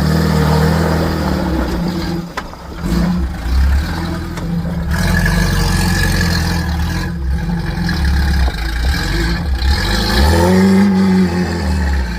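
4x4 engine running, with a rise and fall in revs about ten seconds in. The sound breaks off briefly several times, as between cut-together clips.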